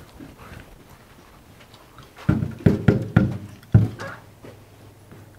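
Knuckles knocking on a dorm room door: a quick run of about five knocks a little past halfway, the last one the loudest.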